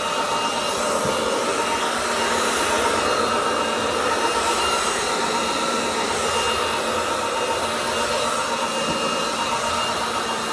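Roborock Dyad Pro wet-and-dry floor vacuum running in max mode, a steady, even motor and suction noise with a faint steady whine.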